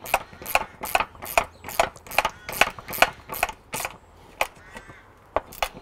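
Hand ratchet clicking in quick, regular strokes, about two or three a second, as it tightens a nut and washer onto a pergola louvre's drive shaft. After about four seconds the strokes thin out to a few single clicks as the nut goes tight.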